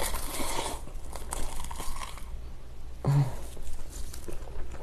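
Close-miked chewing of a big mouthful of rice wrapped in raw laver (gim) with eggplant and fish cake, with short wet mouth clicks throughout. About three seconds in comes a brief low hum.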